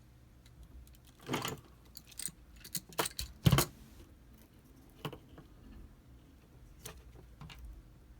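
Handling noise from tools and network cable being worked by hand: an irregular scatter of short clicks, rattles and knocks, the loudest about three and a half seconds in.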